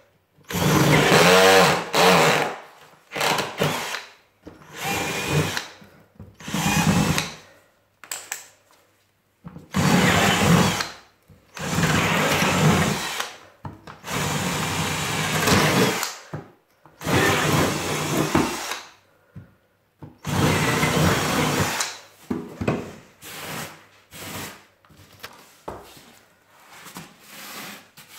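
Power drill running in about a dozen short bursts of one to two seconds each, stopping and starting with short pauses between.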